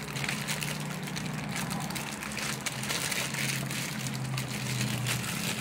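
Crinkling and rustling of plastic packaging being handled, many small irregular crackles, over a steady low hum.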